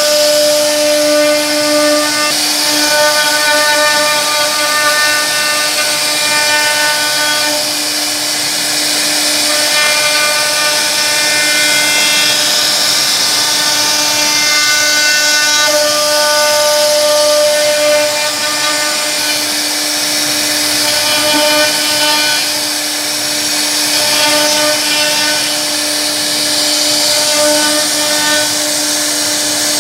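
CNC router spindle running steadily with a high whine while its bit carves grooves and a beaded border into a wooden panel, over the hiss of the cut. Its pitched overtones grow stronger and weaker every few seconds as the cutter moves along the wood.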